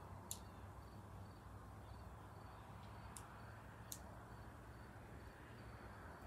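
Near silence: faint outdoor ambience with a low steady hum, faint repeated high chirps, and three brief sharp high ticks, one near the start and two close together about three to four seconds in.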